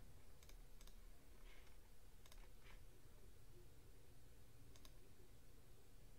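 A few faint computer mouse clicks, about four spread out with some in quick pairs, over a low steady hum, as faces of a model are selected in CAD software.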